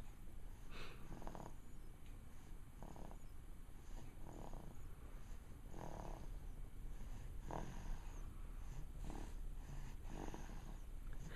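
Snoring, a short rasping breath about every second and a half.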